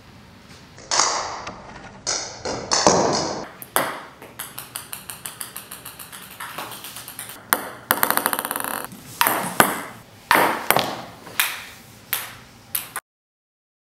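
Table tennis ball clicking sharply on the table, single bounces and quick runs of small rapid bounces. The sound cuts off abruptly near the end.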